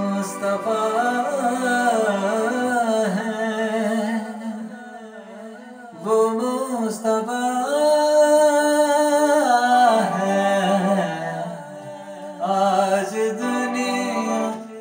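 A man singing a naat, an Urdu devotional song, in long drawn-out phrases with ornamented, wavering notes, over a steady held backing tone. His phrases ease off briefly about four and a half seconds in and again about ten seconds in.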